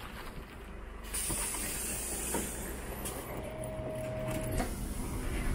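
City bus idling at the stop with a steady low engine rumble; about a second in a hiss of compressed air starts abruptly and carries on. Later a single steady tone sounds for just over a second.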